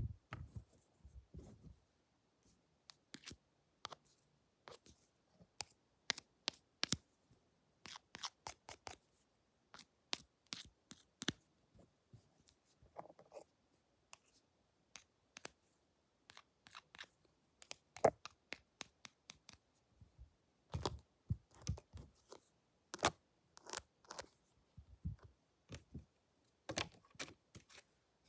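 Scissors snipping close to the microphone in irregular runs of short, crisp clicks, with a few soft low thuds of handling in between.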